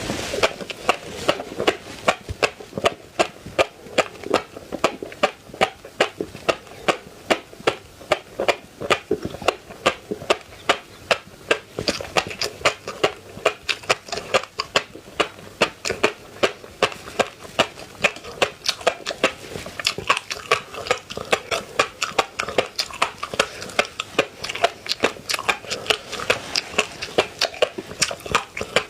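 Close-miked chewing with wet mouth clicks, a steady rhythm of about three chews a second.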